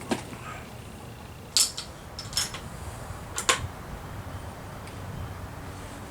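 Sharp metallic clicks and clinks from handling a lever-action rifle, in four short groups over the first three and a half seconds.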